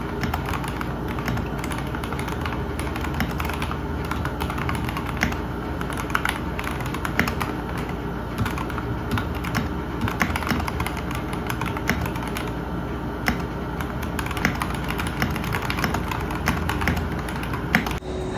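Typing on a mechanical keyboard: a fast, irregular run of key clacks.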